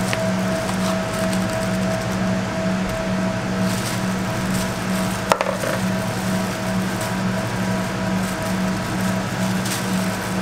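Steady machine hum: a low, evenly pulsing drone with a faint high steady tone over it. One sharp click comes about halfway through.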